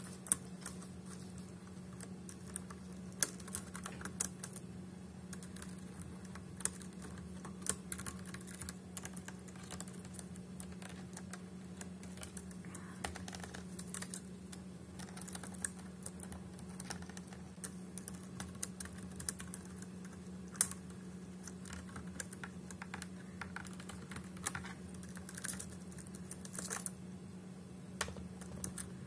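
A cockatiel pecking and prying at the plastic keys of a laptop keyboard and stepping across them, making irregular clicks and taps like uneven typing. A steady low hum runs underneath.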